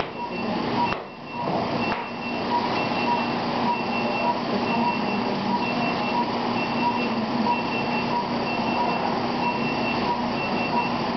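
Steady operating-room machine noise, a continuous hum and hiss, with short regular electronic beeps a little more often than once a second, typical of a patient monitor.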